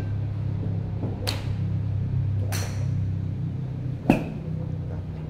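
A driver's clubhead strikes a teed golf ball with one loud sharp crack about four seconds in. Two fainter cracks come earlier, from balls struck nearby, over a steady low hum.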